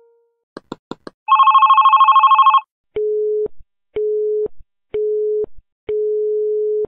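Deepin 2013 desktop sound theme's telephone sounds played in turn: after a few short clicks, a fast electronic phone ring lasting just over a second, then a busy signal of three half-second beeps a second apart, then a long steady ringback tone that begins near the end.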